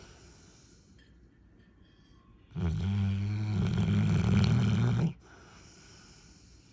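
Cane Corso dog snoring in its sleep: one long, loud snore of about two and a half seconds, beginning about two and a half seconds in, with only faint sound before and after it.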